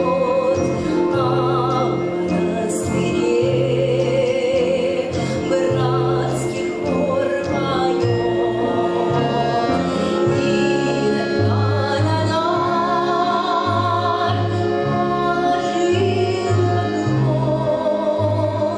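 A female vocalist sings with an orchestra, her melody wavering with vibrato over a slow bass line that moves note by note.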